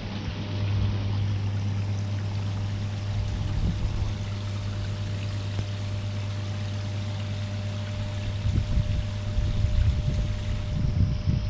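Water spilling steadily from a koi pond's cascade into the pond, over a steady low hum. About eight seconds in, uneven low rumbles come and go for a few seconds.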